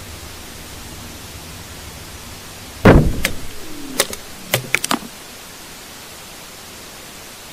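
A heavy thud with a low rumble about three seconds in, then a quick series of sharper knocks, over a steady hiss. This is an underground recording that the uploader labels as blasting work in a tunnel, recorded at 25 m depth.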